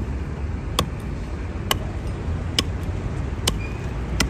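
Small hand hatchet chopping into a wooden block on a chopping stump, six sharp strikes about a second apart, over a steady low traffic rumble.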